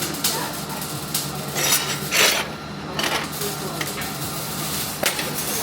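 Small steel pieces clinking and knocking as they are handled on a metal welding bench, with a few short scrapes and a steady hum underneath.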